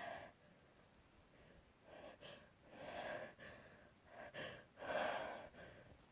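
A person's gasping, hitching in-breaths as a sneeze builds: two pairs, each a short catch followed by a longer gasp.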